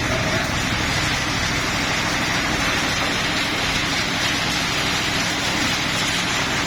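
Stone crusher machine running on trial, a steady loud dense noise with a low rumble underneath that stays even throughout.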